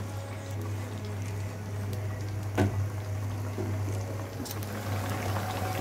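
Chicken pieces frying in oil in a pan, a steady, even sizzle, with a single sharp knock about two and a half seconds in and a low steady hum beneath.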